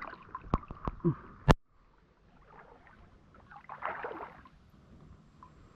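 Water sloshing and splashing as a person wades waist-deep in a lake, swelling about four seconds in. Before that, a few sharp knocks in the first second and a half, the last the loudest.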